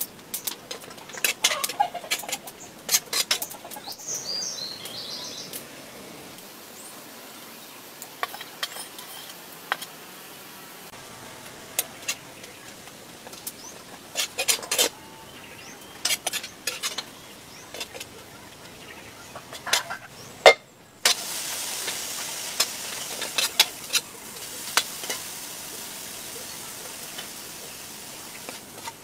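Food sizzling in a pan while a utensil stirs it, knocking and scraping against the pan again and again. The sizzle cuts out briefly about two-thirds of the way through, then comes back louder.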